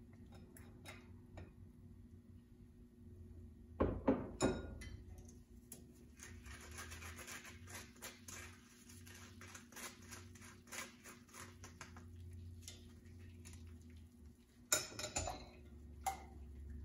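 A silicone spatula scraping a custard mixture through a fine-mesh metal sieve into a stainless-steel pan, over a faint steady hum. Sharp knocks against the pan come twice, about four seconds in and near the end.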